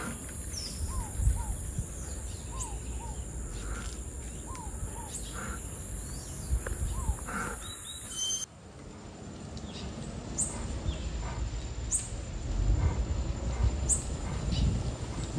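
Birds calling outdoors over a low rumble of wind. In the first half short falling notes come in pairs; after a sudden change in the sound about eight seconds in, a thin, high falling note repeats about every two seconds.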